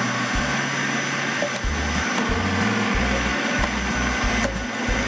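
Philips HR7310 700 W food processor running steadily, its grating disc shredding carrots as they are pushed down the feed tube.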